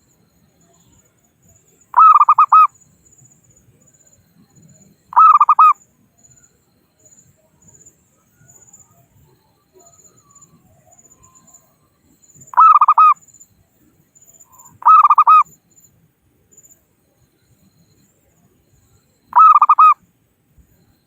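Local zebra dove (perkutut) cooing its call to rivals: five short bursts of quick, rolling coos, each about half a second long, spaced irregularly several seconds apart.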